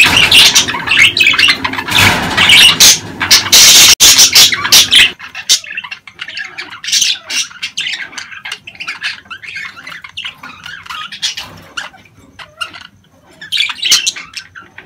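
Budgerigars chattering and squawking: the breeding-season chatter of budgies. It is loud and dense for about five seconds, then cuts to quieter, sparser warbling chirps, with a brief louder flurry near the end.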